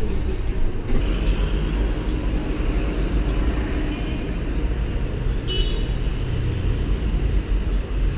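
Steady low rumble of road traffic, with a brief high squeak about five and a half seconds in.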